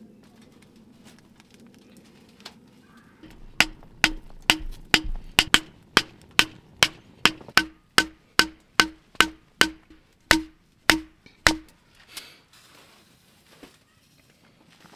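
Firewood being split into kindling on a log stump: about nineteen sharp wooden knocks at roughly two a second, each with a short ring. They start a few seconds in and stop about two thirds of the way through.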